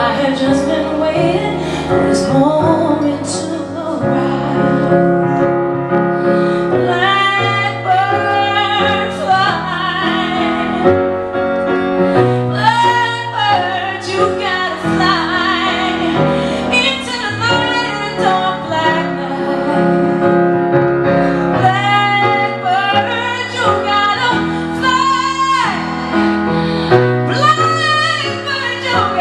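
A woman singing a song live, with sustained, sliding sung notes over instrumental accompaniment.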